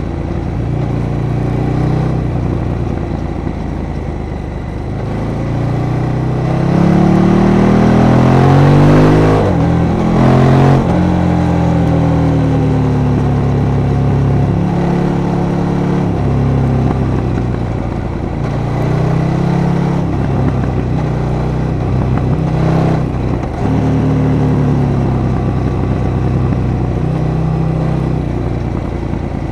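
KTM 1290 Super Duke R's 1301 cc V-twin engine pulling hard through a series of bends. The revs climb to their loudest point about nine to ten seconds in, break sharply, then rise and fall repeatedly with the throttle.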